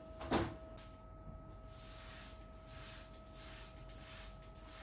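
A soft knock just after the start, then a string of soft swishing noises as a leafy houseplant is handled and tended, over a faint steady electrical hum.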